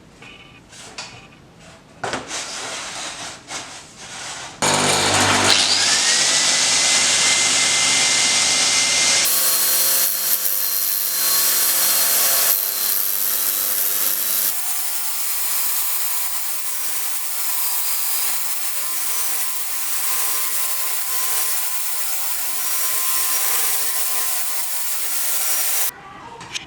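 A power tool runs and works material for about 20 seconds. It starts about five seconds in with a short rising whine as it spins up, changes sharply a couple of times, and cuts off suddenly near the end. Light irregular knocks come before it.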